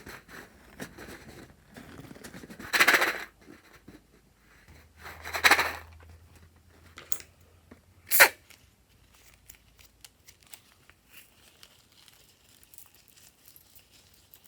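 Hands working balloons and slime: two rasping, tearing noises, then a single sharp snap about eight seconds in, followed by faint small crackles.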